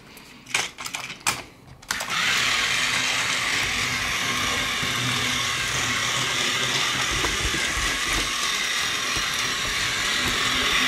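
Plarail Ryan battery toy train: a few clicks as it is handled on the plastic track, then from about two seconds in its small electric motor and gears run with a steady whir as it hauls its wagons round the track, running normally.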